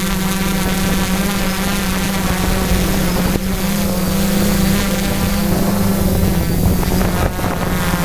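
Quadcopter drone's motors and propellers buzzing steadily, heard close up from the drone itself, with a strong hum whose pitch wavers slightly as it flies.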